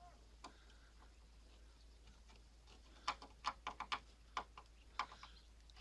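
Flat screwdriver clicking against the metal end fitting and retaining clip of a car tailgate gas strut as it is pried off its ball mount. About eight sharp clicks in a quick run from about halfway in.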